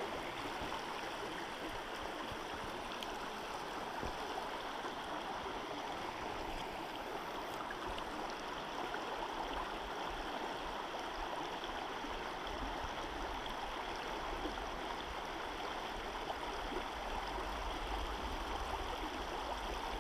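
River water running steadily over rocks through a small rapid.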